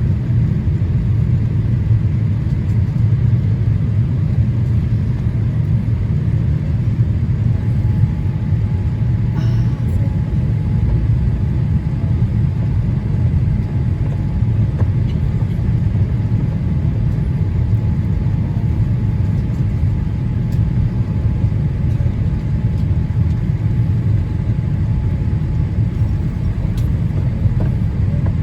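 Steady low rumble of airliner cabin noise, engines and airflow, inside a Boeing 787-8 Dreamliner on descent. A faint steady high tone joins about a quarter of the way in.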